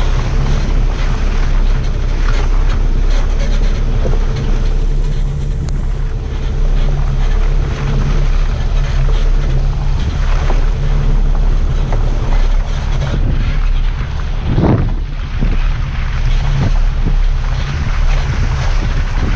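Wind rushing over an action camera mounted on a 4x4 off-roader, over the steady drone of the vehicle's engine and its tyres on a muddy track. A brief, louder rush comes about three quarters of the way through.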